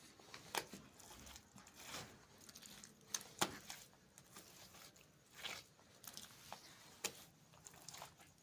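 Bare hands patting, smearing and smoothing wet mortar onto brickwork, giving faint, irregular pats, scrapes and gritty crunches.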